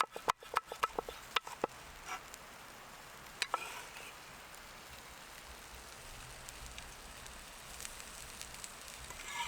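A knife chopping on a wooden board in quick, even strokes for the first second and a half, then the steady hiss and faint crackle of a campfire.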